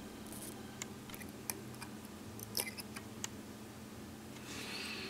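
Faint, scattered small clicks and ticks while a vape coil is dry-fired on a Coil Master 521 TAB and pinched with ceramic tweezers to burn off residues, over a faint steady hum; a soft hiss comes up near the end.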